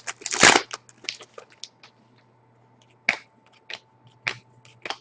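A foil trading-card pack wrapper crinkled and torn open, a loud crackling burst about half a second in, followed after a short lull by sharp clicks about every half second as the cards are handled.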